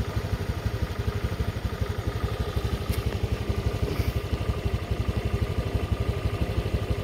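Honda Vario 150 scooter's single-cylinder engine idling steadily, with an even, rapid putter.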